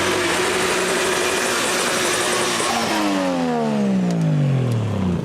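Drag-racing vehicle engine at full throttle, holding a steady note for about three seconds, then dropping steadily in pitch over the last two seconds as it passes by and backs off.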